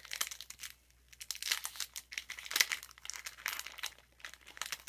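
Hands tearing open and crinkling the wrapper of a 1992-93 Topps basketball card pack, an irregular run of crackles with the loudest about two and a half seconds in.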